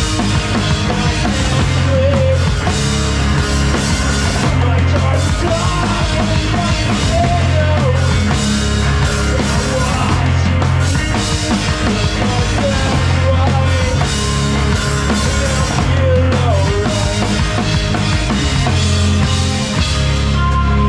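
A live emo/punk rock band playing loud and without a break: a full drum kit with steady cymbal wash and kick drum over electric guitars and a sustained bass line.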